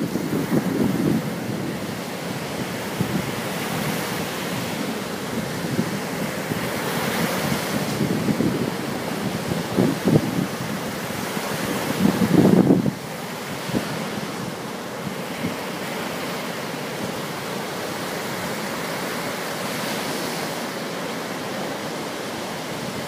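Small sea waves breaking and washing up a sandy beach in a steady surf wash, with wind buffeting the microphone at times. The loudest surge comes about twelve seconds in.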